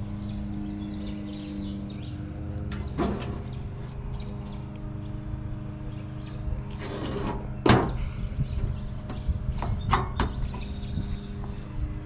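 Steel hood lid of a Massey Ferguson 35 tractor being handled and swung shut, with a few knocks and a short scrape, then a sharp bang from the lid closing just before eight seconds in, over a steady low hum.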